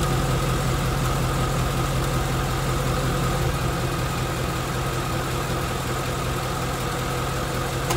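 2016 Mustang GT's second-generation Coyote 5.0 V8 idling steadily, heard from the wheel well. A single sharp click near the end is the AC compressor clutch cycling.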